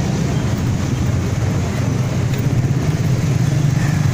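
Small sport motorcycle engines running with a steady low rumble as riders move off slowly.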